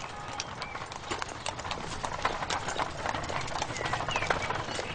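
Horse's hooves clip-clopping on the road as a horse-drawn carriage passes, mixed with people's footsteps.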